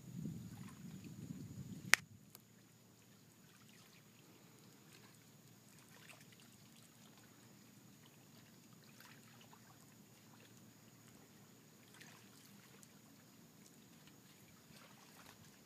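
Faint small waves lapping at a river shoreline. A low rumble in the first two seconds ends abruptly with a single sharp click, and after that only the faint lapping and scattered soft ticks remain.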